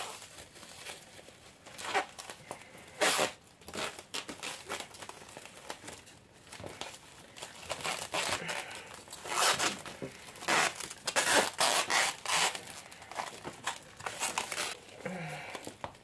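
Clear plastic film crinkling and rustling in irregular bursts as it is handled and wrapped around a plant pot, with short tearing sounds as stretch film is pulled off its roll.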